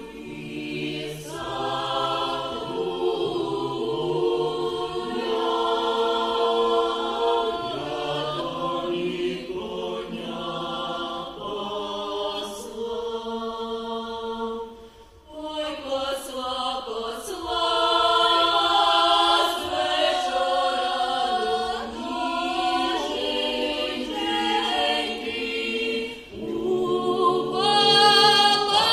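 A small group of voices singing a Ukrainian folk song a cappella in several parts, with long held notes and a brief break about halfway through.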